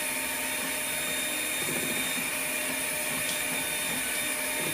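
Electric mixer running steadily, beating cake batter as dry ingredients and milk are added in turns.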